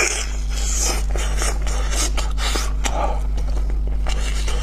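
Close-miked mouth sounds of biting into and chewing sticky braised pork knuckle: wet smacking and tearing of the gelatinous skin, with many short clicks scattered through the sound, over a steady low hum.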